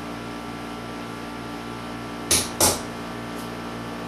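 Two quick sharp strikes of a hammer on a punch against a concrete wall, about a third of a second apart, marking a starting dimple so the masonry drill bit won't wander. A steady low hum continues underneath.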